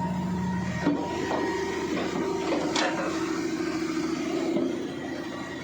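A machine running with a steady hum that steps up in pitch about a second in, with a few sharp knocks.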